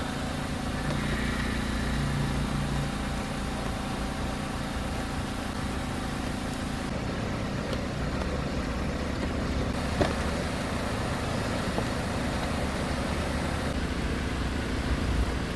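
A steady low mechanical hum, like an engine or machine running nearby, with a single sharp click about ten seconds in.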